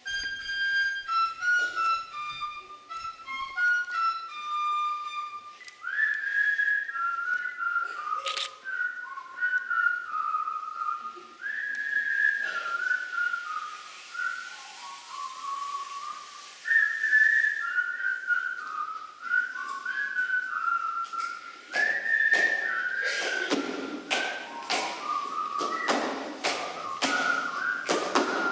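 A small folk flute playing a solo melody of short, stepping notes. In the last several seconds, quick knocks and thumps of stamping feet on the stage floor come in under the flute.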